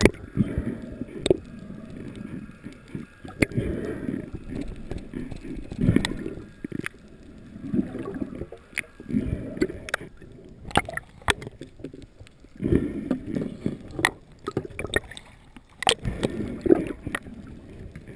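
Muffled water sloshing and swishing heard underwater through a camera housing. It swells and fades every second or two, with scattered sharp clicks.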